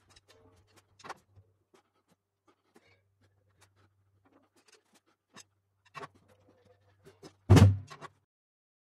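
Light knocks and shuffles as a drummer settles in at a Pearl Masters Maple drum kit, then one loud hit on the kit about seven and a half seconds in, with a deep body that rings for about half a second.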